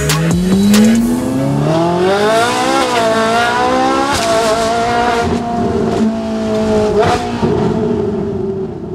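Ferrari 458 Italia's 4.5-litre V8 through a Fi Exhaust valved race catback, accelerating hard with its note climbing for about three seconds. The pitch drops about four seconds in, then holds a steady note and begins to fade near the end.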